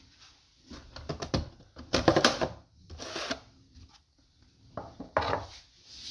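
Glass-fibre hatch of an RC tunnel boat being lifted off the hull and set down on the wooden bench: a run of clicks, knocks and scrapes in several clusters, loudest about two seconds in.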